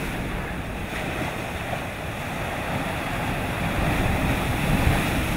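Sea waves breaking and washing over a rocky shore: a steady rush of surf, swelling slightly near the end.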